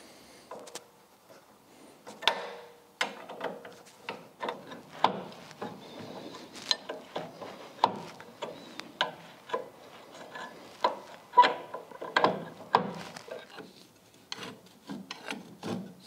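Irregular metallic clicks and scrapes, about one or two a second, as a bent offset wrench turns out a brake caliper's mounting bolt.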